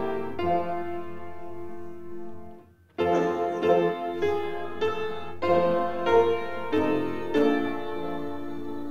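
Piano music playing, held notes changing every half second or so; it fades almost to nothing about two and a half seconds in and comes back abruptly about three seconds in.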